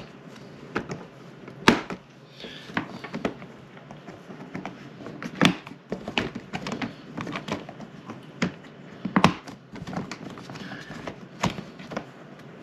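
Hard plastic egg-turner rack parts of an egg incubator clicking and knocking as they are handled, snapped together and set down on a wooden table: a string of irregular sharp clicks, with a few louder knocks.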